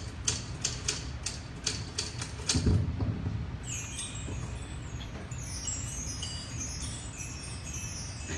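Typewriter keys struck one at a time, about three a second, then a low thud just under three seconds in. After that comes a shimmering magic sound effect of repeated high, falling tinkles, the cue of a genie appearing.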